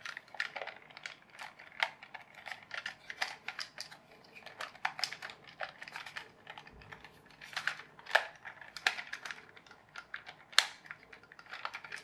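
Irregular clicks and taps of hard plastic as a toy bulldozer is handled and turned over in the hands, its parts being pried at to see how they unclip, with a few louder knocks.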